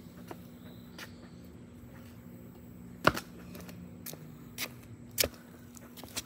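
Footsteps on grass close to the microphone: a few irregular soft knocks, the loudest about three seconds in, over a steady low hum.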